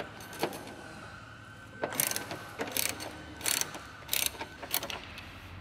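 A 15 mm ratcheting wrench clicking as a subframe bolt is worked loose: a couple of single clicks, then from about two seconds in about five quick runs of rapid clicks, one every half second or so.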